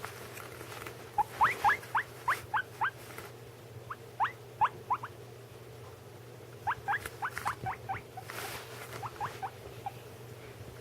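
Guinea pig wheeking: short, sharply rising squeaks in quick runs, three bouts with short pauses between.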